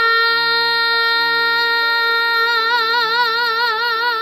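A woman singing one long held note, steady at first and then with vibrato from a little past halfway, over soft instrumental accompaniment.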